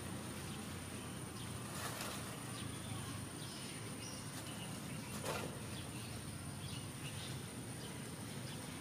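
Quiet open-field ambience: a steady high-pitched insect drone with faint scattered bird chirps, and two short brief noises about two and five seconds in.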